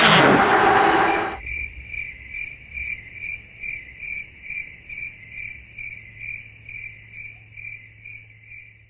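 Background music ends about a second in, then a cricket chirps in a steady rhythm, a little over two chirps a second, over a faint low hum.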